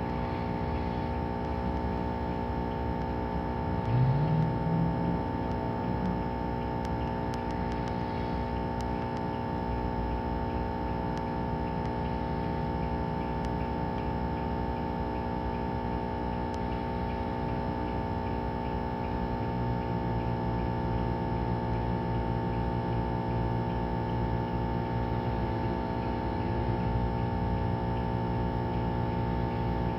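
Engine running steadily with a constant hum. It rises briefly in pitch about four seconds in and gets a little louder from about twenty seconds in.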